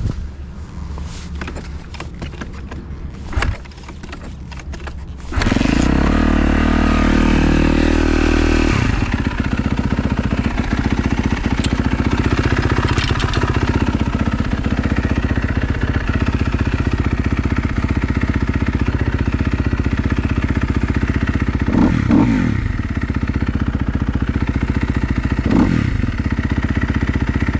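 2012 Kawasaki KX250F four-stroke single-cylinder motocross engine, freshly rebuilt, fires up about five seconds in after some clicking and knocking. It runs fast for a few seconds, then settles to a steady idle, and is blipped three times near the end. It starts easily on a hot day and sounds healthy.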